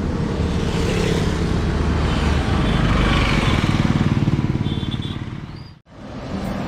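A motor engine running up close with a steady pulsing note, swelling in the middle, then cut off abruptly about six seconds in before an engine sound starts again.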